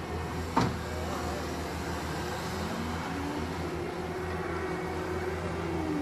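Caterpillar 259D3 compact track loader's diesel engine running steadily, its pitch drifting up and down slightly as the loader works. A single sharp knock about half a second in.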